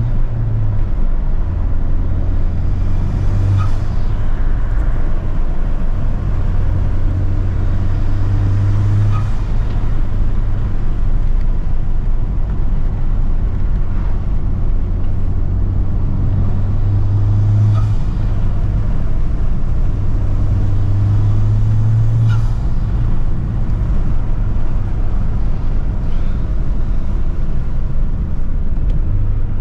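Honda Civic Type R engine and intake under hard acceleration, with loud induction noise. The engine note climbs and drops back about four times as it works through the gears, with a brief sharp sound at each peak.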